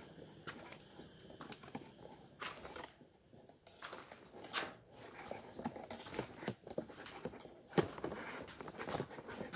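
Irregular rustling and crackling of leaves and twigs in forest undergrowth, with one sharper crack about eight seconds in.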